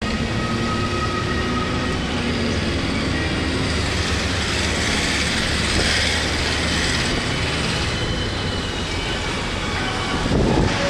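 Steady car cabin noise from a car driving slowly: a low engine and road rumble with tyre hiss on wet tarmac. There is a brief louder bump near the end.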